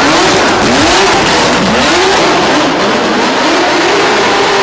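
BMW E30 drift car's engine revving up and down again and again as it slides, under a loud hiss of spinning tyres. Near the end the revs hold steady.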